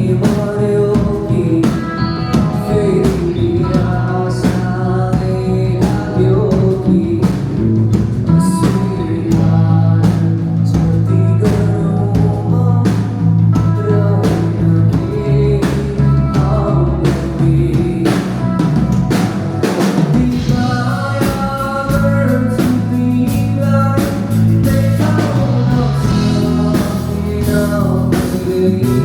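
Live band playing a song with a singer: drum kit keeping a steady beat under bass, guitar and vocals.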